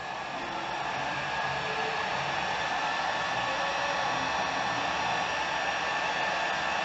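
Electric heat gun blowing steadily, shrinking heat-shrink tubing over a USB cable's solder joints; it builds in level over the first second or two, then holds.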